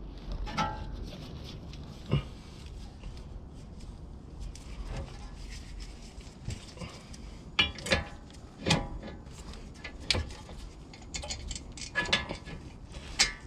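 Scattered metal clinks and knocks of a 2008 Acura TSX front brake caliper being fitted back by hand over new pads and rotor, with a few sharper knocks in the second half.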